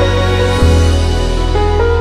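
Soft instrumental background music with slow, sustained notes; a new deep bass note comes in about half a second in.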